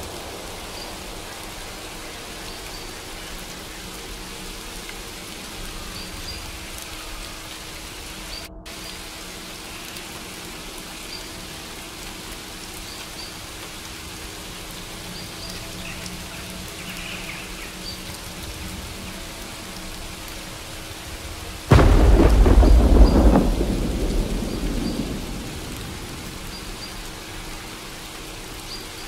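Steady rainfall with a thunderclap that breaks in suddenly and loudly about three-quarters of the way through, then rumbles away over a few seconds.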